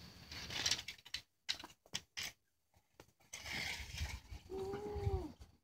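Clicks, knocks and rustling from hands and tools working on a car wheel during a tire change, with a short whine that rises then falls near the end.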